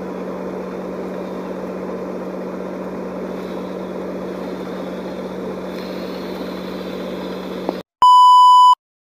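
Steady engine drone with a constant low hum, heard from inside a car on a ferry's vehicle deck. It cuts off abruptly near the end. A loud, steady test-tone beep of under a second follows with the colour bars.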